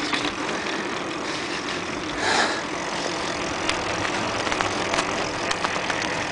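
Bicycle ridden over paving: a steady rush of wind on the microphone with the bike and camera rattling, and scattered clicks and knocks from bumps in the path.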